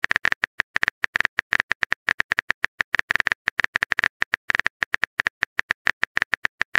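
Phone keyboard typing sound effect: a rapid, irregular run of short, identical clicks, several a second.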